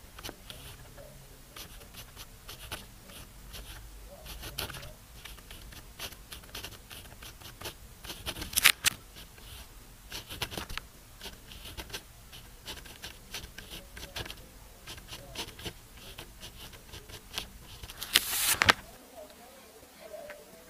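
Pen nib scratching across smooth paper while Chinese characters are handwritten: many short strokes one after another, with a louder scrape about nine seconds in and again near the end.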